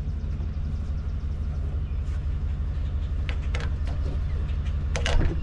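A Chevrolet Tahoe's V8 engine idling steadily behind the hitch, with a few short knocks over it as the camper tongue is worked at the hitch; the loudest knock comes near the end.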